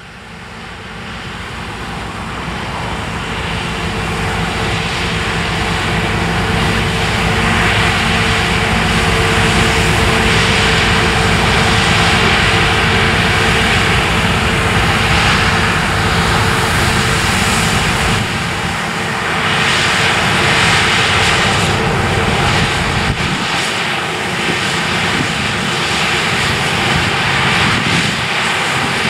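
Claas Lexion 600TT combine harvester running steadily under load while cutting oilseed rape. The sound rises over the first few seconds and later dips slightly twice.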